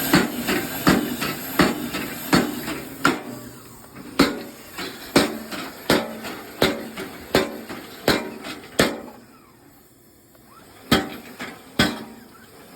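Homemade da Vinci-style power hammer striking metal again and again, a little under one and a half blows a second. The blows stop for about two seconds near the end, then start again.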